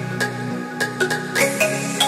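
Background music: an electronic track with quick, bright plucked notes over held chords.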